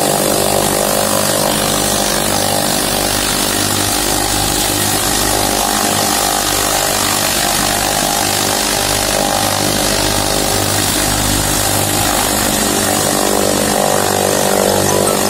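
Tractor-driven chaff cutter running steadily as dry fodder stalks are fed in: the tractor's diesel engine under load together with the cutter's spinning blades and blower, a loud continuous mechanical sound.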